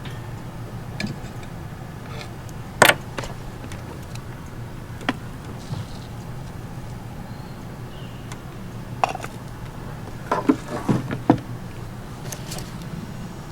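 A steady low hum with scattered sharp clicks and knocks: a loud one about three seconds in and a quick cluster of them around ten to eleven seconds in.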